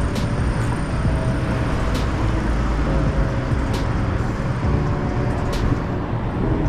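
Steady road traffic from a busy avenue: a low rumble of passing cars, with a faint sharp tick about every two seconds.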